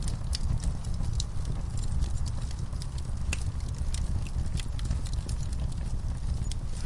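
Wood fire burning: irregular sharp crackles and pops over a steady low rumble of the flames.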